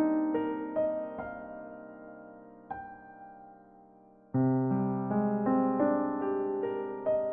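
Soft background piano music: notes struck one after another that ring and fade away, then a new phrase begins about four seconds in.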